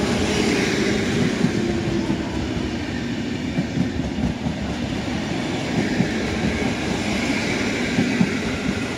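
PKP Intercity passenger coaches rolling past, a steady rumble with an irregular run of wheel clacks. The sound eases slightly as the last coach goes by near the end.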